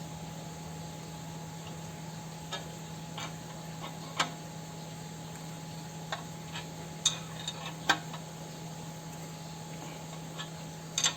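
Scattered light metallic clicks and taps, about a dozen at uneven intervals, from tools working a three-jaw puller on a square-taper bicycle crank arm, over a steady low hum.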